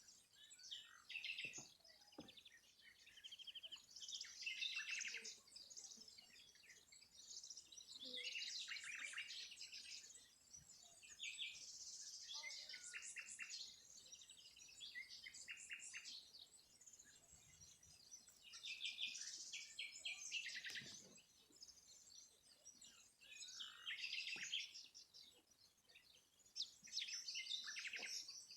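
Birdsong: several small birds chirping and trilling in short, high, overlapping phrases, one after another.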